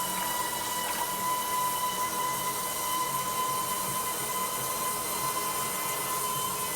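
Toilet tank refilling after a flush, with a steady high-pitched whistle held on one note over the hiss of running water. The whistle is this toilet's odd after-flush noise, typical of a fill valve singing as water passes it.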